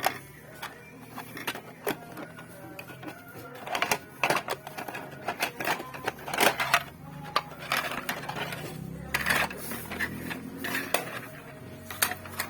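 Objects from a parcel being handled: irregular clicks, knocks and clatters of hard plastic or glass pieces, over faint background music.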